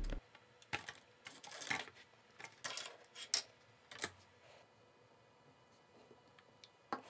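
Scattered sharp clicks and taps of hands-on work: a small screwdriver, the wire landing-gear legs and a 3D-printed plastic fuselage knocking together on a workbench. Most fall in the first four seconds, with one more just before the end.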